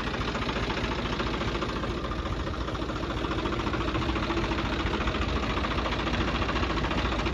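Tractor diesel engine running steadily close by, with a rapid, even chug, growing slightly louder toward the end.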